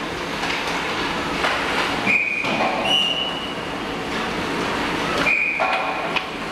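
Indoor ice rink during hockey practice: a steady scraping rush of skates on the ice and arena noise, broken by three short high-pitched tones about two, three and five seconds in.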